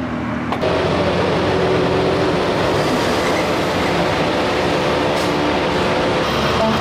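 Inside a moving city bus: steady engine and road noise, with a faint steady whine, starting about half a second in.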